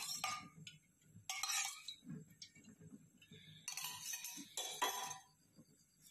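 A few brief metallic clinks and rattles of kitchen utensils against an aluminium cooking pot while oil is put in for tempering, with quiet gaps between them.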